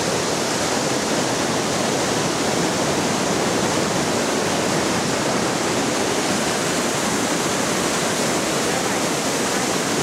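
River water rushing over rocks in shallow cascades and rapids: a steady, even rush of white water.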